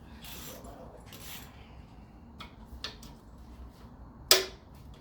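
Hand wrench on a 12 mm bolt of the VG33E engine's tensioner pulley: two short rasping ratchet strokes, a few light clicks, then one sharp, loud crack near the end as the bolt is broken loose with a quick jerk.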